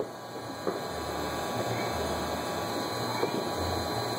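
Continuous rumble and crackle of many distant fireworks and firecrackers going off all around. Sharper pops stand out at the very start, just under a second in, and a little past three seconds.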